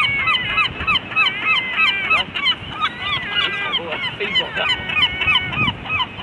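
A flock of herring gulls calling over one another while competing for food, with many short yelping calls repeated several times a second and a few longer held notes.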